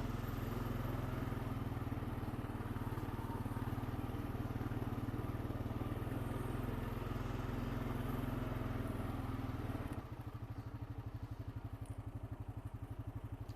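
Honda Rancher 420 ATV's single-cylinder four-stroke engine running steadily. About ten seconds in it drops to a quieter, evenly pulsing idle.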